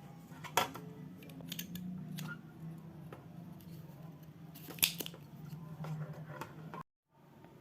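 Small tools clicking and scraping on a mouse's circuit board while the legs of its original switch are desoldered, with a sharp click about half a second in and another near five seconds, over a steady low hum. Old solder is still holding the first leg.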